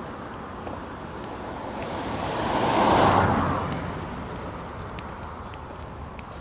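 A car passing by on the road, its noise swelling to a peak about three seconds in and then fading away.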